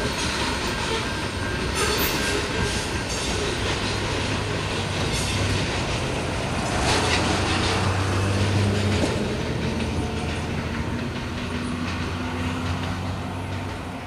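Rear covered hopper cars of a loaded grain train rolling away along the track, a steady rumble and clatter of steel wheels on rail that fades toward the end as the last car recedes.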